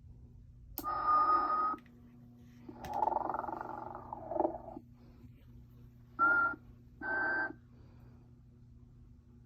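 Snoring sounds from a 1994 Telco Motionette animated sleeping Mrs. Santa Claus figure. A whistling snore comes about a second in, a longer rasping snore follows around three seconds, and two short whistling puffs come near six and seven seconds, all over a steady low hum.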